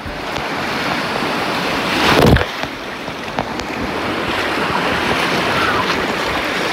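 Rushing, churning whitewater of a water-park rapids river heard from an inner tube riding through it, with a louder splashing surge about two seconds in.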